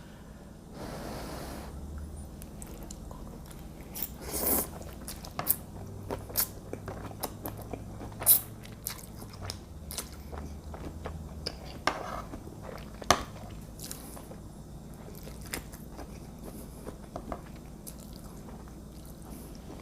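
A person chewing and biting into a shrimp and mussel fettuccine close to the microphone, with scattered sharp clicks throughout.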